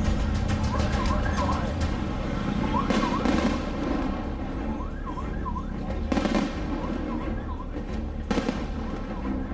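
Fireworks going off in a run of sharp bangs and crackle over a low rumble, with a warbling chirp that repeats in groups of two or three about every two seconds.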